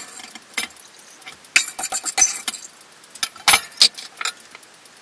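Stainless steel bowls and a strainer being handled on a kitchen counter: scattered metallic clinks and knocks, busiest in the middle, with a few single knocks near the end.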